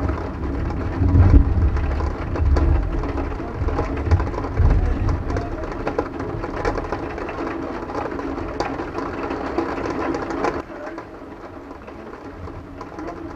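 Thunder rumbling low in the first few seconds over steady rain pattering, then the rain alone. The sound drops abruptly about ten seconds in.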